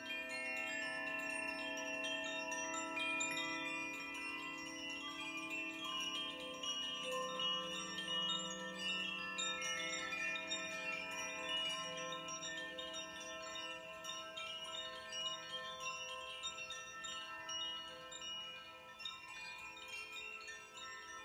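Koshi chime, a hand-held bamboo tube chime, swirled by hand: a continuous shimmer of small tuned strikes whose notes ring on and overlap. Lower ringing tones underneath fade away by about halfway through.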